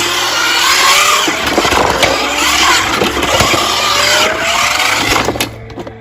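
Racing-car engine revving up in repeated rising sweeps over loud skidding tyre noise. It cuts off suddenly near the end.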